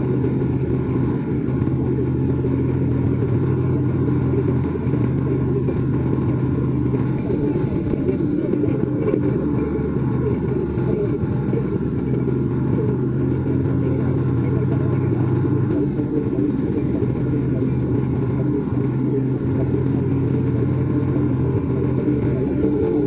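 Harley-Davidson V-twin motorcycle engine running steadily at highway cruising speed, heard from on the bike, mixed with wind and road noise. The engine note shifts slightly a few times.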